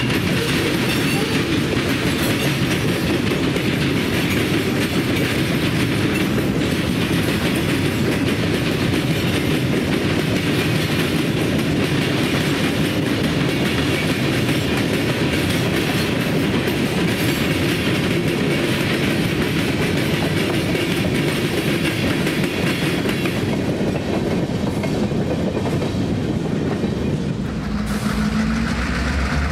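Freight cars rolling past at close range: a steady noise of steel wheels running on rail. Near the end it cuts to a steadier, lower engine hum.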